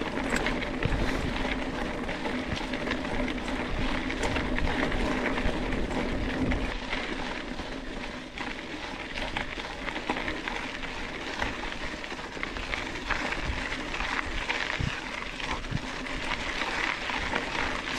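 Mountain bike riding over a dirt trail: a steady rolling noise from the tyres, with many small clicks and rattles from the bike over rough ground throughout.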